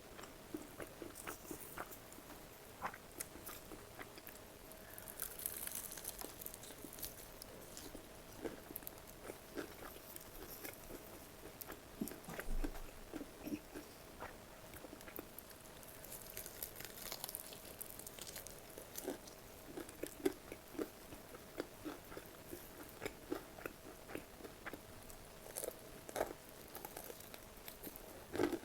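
Close-miked mukbang eating: biting and crunchy chewing at an irregular pace, with a faint steady hum underneath.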